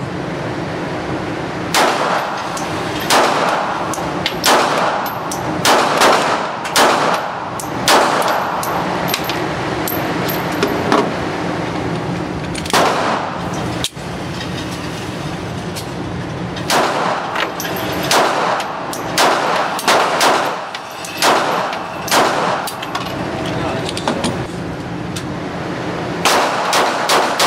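Glock 42 .380 ACP pocket pistol fired on an indoor range: a string of sharp shots about one every half second to a second, a pause, then a second string. A steady background noise runs under the shots.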